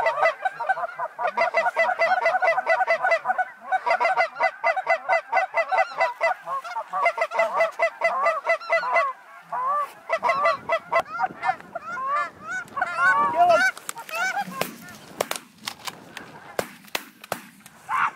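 A flock of geese calling, with many rapid overlapping honks for the first half, thinning to scattered single calls. A few sharp cracks come near the end.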